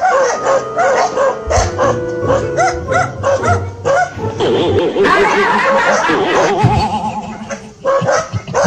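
Dogs barking and yelping repeatedly in short, sharp calls over background music.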